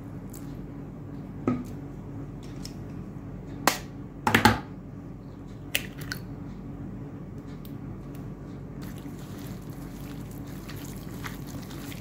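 An egg is cracked against the rim of a plate: a few sharp taps, the loudest a quick double crack about four seconds in. Then, from about nine seconds in, there is faint wet rubbing as raw chicken pieces are mixed by hand with the egg and spice marinade. A steady low hum runs underneath.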